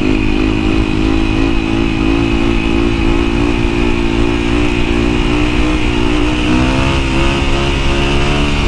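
Yamaha WR450F single-cylinder four-stroke engine running at steady revs under throttle, with wind rush on the helmet microphone. The engine note climbs a little about six and a half seconds in.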